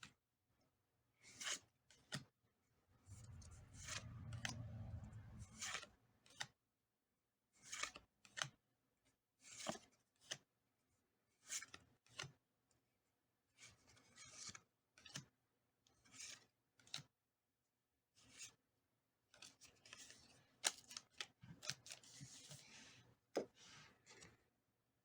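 Pokémon trading cards being handled: short dry swishes of cards sliding off one another every second or two, with a longer rustle a few seconds in.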